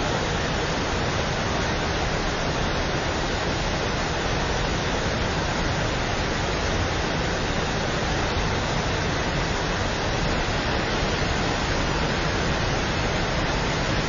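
Waterfall in flood, swollen and muddy from heavy rains, its falling water making a steady, unbroken rush.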